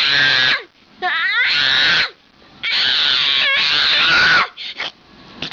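A toddler screaming in a tantrum after waking from a nap: three long, high shrieks with short gasping pauses between them, then a few brief cries near the end.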